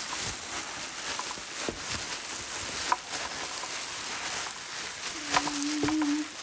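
Packaging being handled while a box is opened: scattered light clicks and rustles. A short hummed "mmm" comes about five seconds in.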